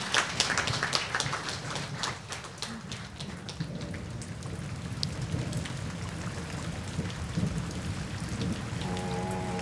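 Guests applauding, the clapping loudest at first and dying away over the first three or four seconds. A steady low rumble follows, and a sustained musical tone comes in near the end.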